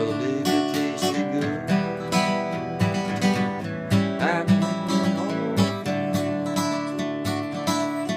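Acoustic guitar strummed in a steady rhythm, playing an instrumental break in a folk song with no singing.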